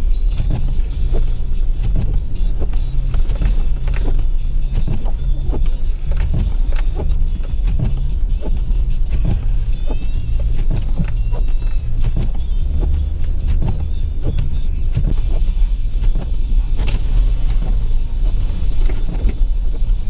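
Inside an emergency vehicle's cabin while it drives on snow-packed, rutted streets: a steady low engine and road rumble, broken by frequent knocks and clunks as the tyres ride over the ruts.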